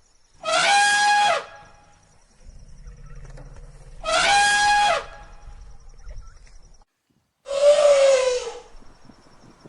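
Elephant trumpeting: three loud, brassy blasts of about a second each, a few seconds apart. The first two hold a steady high pitch, and the last is lower and falls in pitch.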